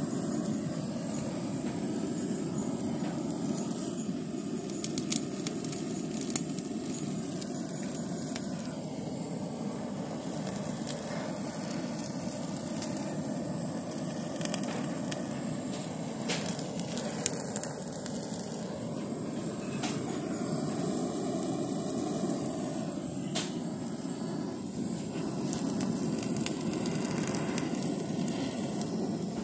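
Butane blow torch on a gas canister burning with a steady rushing hiss of flame as it is played over a chicken, with a few sharp crackles scattered through.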